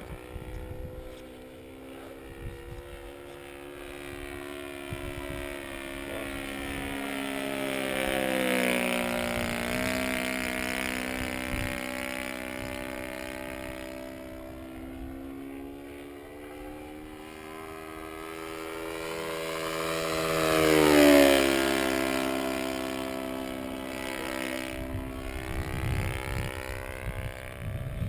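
Seagull Models Extra 260 RC plane with a YS 120 glow engine on a straight pipe, turning a 16x6 propeller in flight. It makes two fly-bys: the engine note swells and drops in pitch as the plane passes, once about a third of the way in and again, louder, about three-quarters through.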